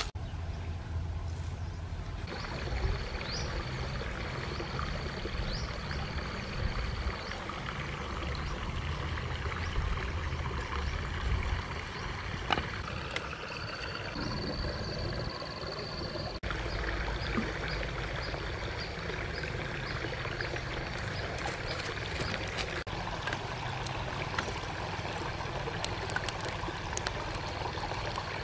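Steady rush of a stream's running water, with a thin high whine that comes and goes.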